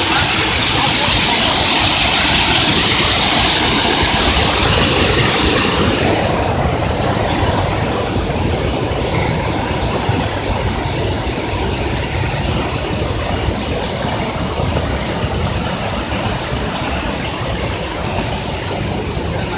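Waterfall rushing as a steady loud hiss, which grows fainter about six seconds in, leaving a steady low rumble.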